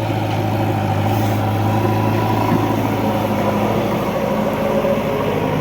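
Diesel engine running steadily, its pitch shifting slightly about halfway through.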